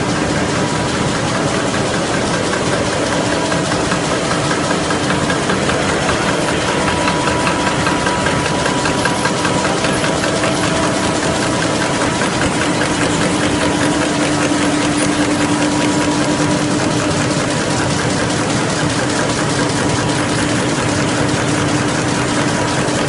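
F.L. Smithe RA/WA envelope folding machine running: a steady, rapid mechanical clatter with a low hum underneath.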